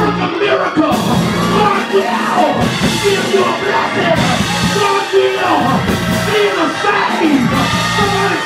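Live gospel band music with a bass guitar, and a man shouting and singing loudly into a microphone over it.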